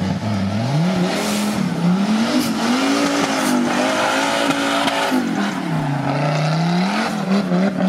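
Off-road trial buggy's engine revving hard under load on a steep muddy climb. Its pitch rises and falls repeatedly as the throttle is worked, dips a little past the middle, then climbs again.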